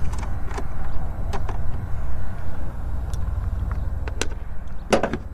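Sharp metallic clicks and clinks of a wrench working a car battery terminal nut loose, a few scattered ones and a quick cluster near the end, over a steady low rumble.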